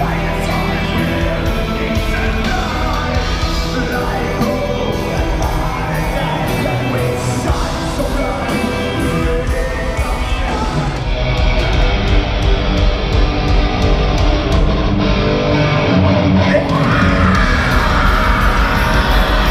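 Black metal band playing live through a large hall's PA, with drums, guitars and vocals.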